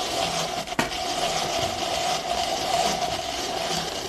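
An electric kitchen appliance's motor running steadily while grinding up carrots, with a short click about a second in.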